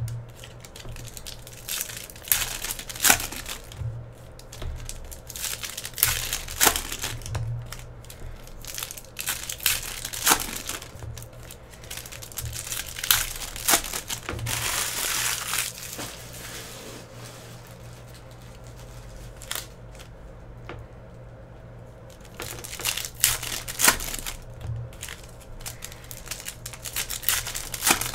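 Foil wrappers of Panini Prizm basketball card packs crinkling and tearing as the packs are ripped open, in sharp irregular crackles, with a few quieter seconds past the middle.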